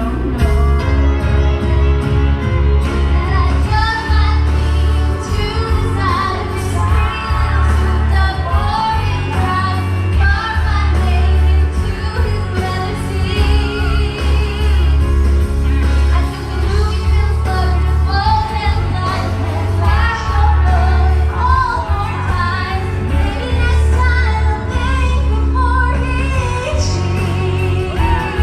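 A woman singing karaoke over a loud backing track with a strong, steady bass.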